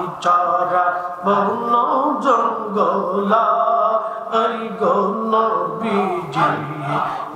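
A man singing a Bengali devotional zikir song into a microphone, in long, chant-like melodic phrases with held, sliding notes.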